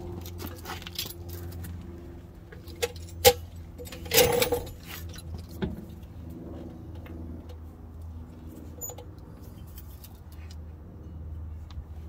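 Clinks and knocks of small metal parts and tools being handled, with a louder rattle about four seconds in, over a steady low hum.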